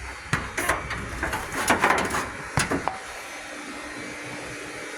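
Rear liftgate of a Toyota RAV4 being unlatched and opened: a handful of sharp clicks and knocks over the first three seconds. A faint steady hum with a low held tone follows.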